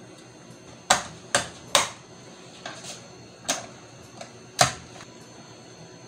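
Sharp plastic clicks as a wall switch plate and an electrical box cover are pressed and snapped into place: five loud, irregularly spaced clicks with a few fainter ones between.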